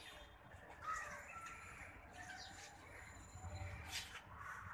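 Faint outdoor background with several short bird calls scattered through, small rising and falling notes.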